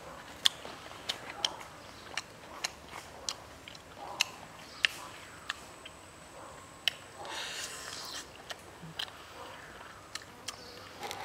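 A person chewing and eating a grilled chicken leg, with irregular sharp wet mouth smacks about once or twice a second and a longer crackly stretch about seven seconds in.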